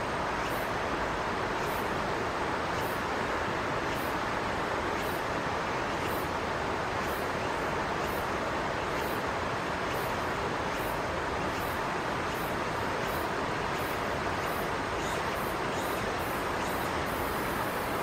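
Steady rushing of river water, an even, unchanging wash of noise.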